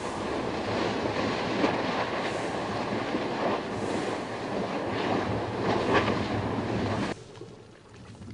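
Molten lava churning and spattering in the lava lake of an active volcano: a rough, surging rush like surf, with sharper spurts. It cuts off suddenly about seven seconds in, leaving a much quieter hiss.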